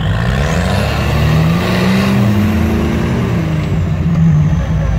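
Off-road vehicle engine revving hard under load while towing a stuck UAZ out of a bog on a tow rope. The pitch climbs over the first two seconds, then falls back.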